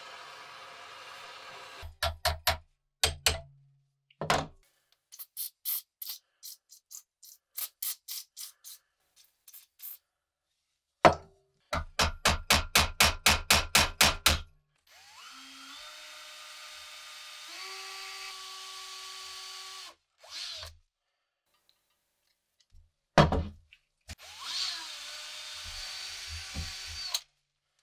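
A butane torch hisses, then a hammer strikes a punch held on the steel hilt of an M1 Garand bayonet clamped in a vise: a few heavy blows, lighter taps, then a quick run of about four strikes a second. A power drill then bores into the hilt, its pitch stepping up as it speeds, stops, and after a couple of knocks runs again.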